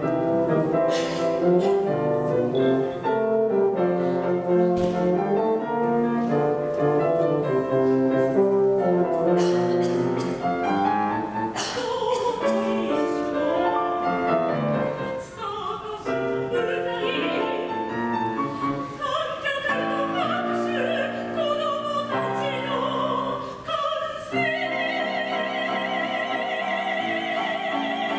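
Piano accompaniment playing, joined about ten seconds in by a solo singing voice in a classical style, with wide vibrato on long high notes near the end.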